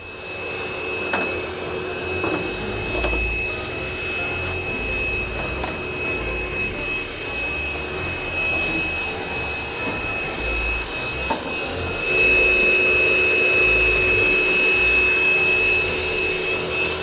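A small motor running steadily with a constant high whine over a hiss, getting louder about twelve seconds in.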